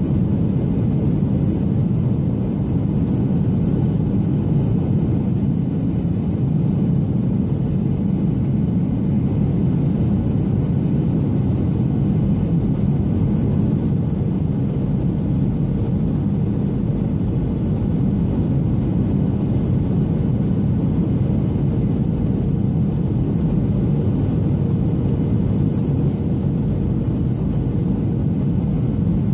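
Steady cabin noise inside a Boeing 737-800 airliner in flight: a low, even rumble of airflow and its CFM56-7B turbofan engines, with a faint steady hum.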